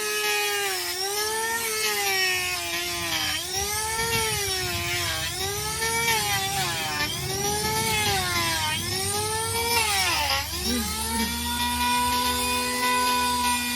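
Electric hoof-trimming power tool whining as it cuts a donkey's hoof, its pitch dipping under load about once a second with each pass. Near the end it runs steady at a higher pitch, off the hoof.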